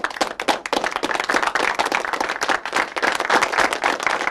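Applause: many hands clapping in a dense, continuous patter.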